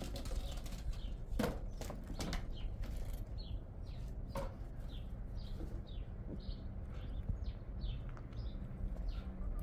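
Dry firewood branches knocking against each other and the cinder blocks as they are handled and laid at the stove, a few sharp knocks in the first half. Small birds chirp repeatedly in the background through the second half.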